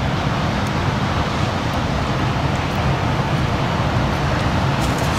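Steady, continuous rumble of heavy winter surf breaking on the beach, with no single wave standing out.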